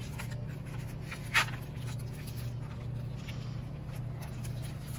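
Pages of a paperback picture book being handled and turned, faint paper rustling over a steady low hum, with one brief sharp sound about a second and a half in.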